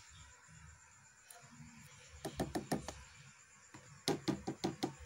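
White plastic spoon knocking against the side of a plastic tub of liquid gold-precipitation solution. There is a quick run of about five taps about two seconds in, then a second rapid run of about eight taps starting about four seconds in.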